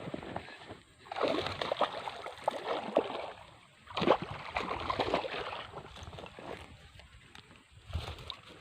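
Water splashing and sloshing in two bursts of a couple of seconds each, then quieter.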